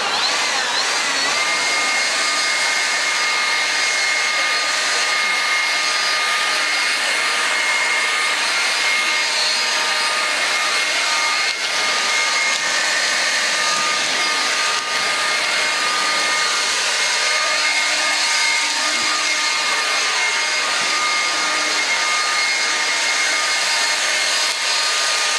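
DeWalt DCBL720P1 20-volt brushless cordless handheld leaf blower running at full speed: a high, steady whine over loud rushing air. Its pitch rises as it comes up to speed in the first second.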